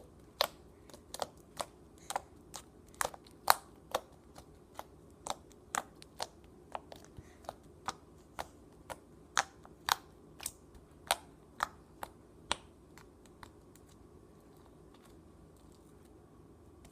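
Sticky homemade slime clicking and popping as fingers poke into it and pull away: a quick run of sharp little clicks, two or three a second, that stops about twelve seconds in.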